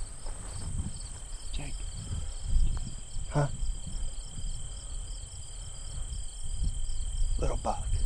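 Crickets and other insects trilling and chirping steadily over a low rumble.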